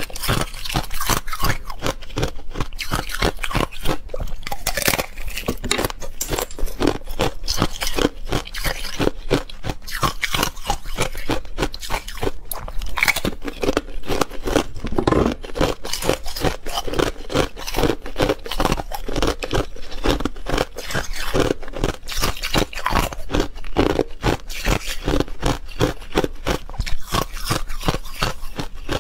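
Thin sheets of ice being bitten and chewed close to a clip-on microphone: a dense, continuous run of sharp crunches and cracks.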